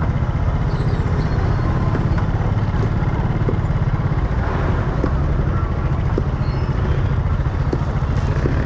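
Outdoor market background dominated by a steady low rumble, with a few faint short ticks and no clear voices.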